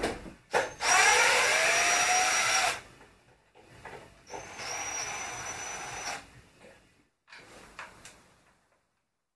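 Cordless impact driver spinning in two short runs of about two seconds each, backing out small screws from the motorcycle's airbox top. The motor whine rises as the first run starts, and the driver turns freely without hammering.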